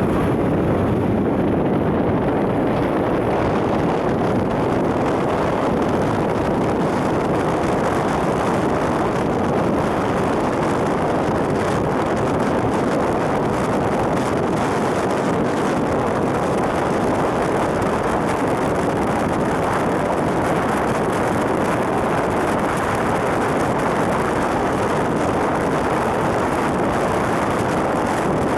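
Steady, loud rushing noise of vehicles moving through floodwater on a flooded highway, with wind buffeting the microphone.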